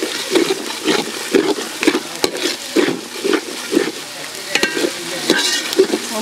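Metal spatula stirring and scraping onions and spice paste frying in oil in a large aluminium pot, about two strokes a second, over a steady sizzle.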